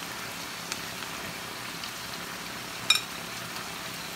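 Steady sizzling hiss of beef cooking in a baking tray on a gas burner, with a few soft taps as potato slices are laid in and one sharp, ringing clink about three seconds in.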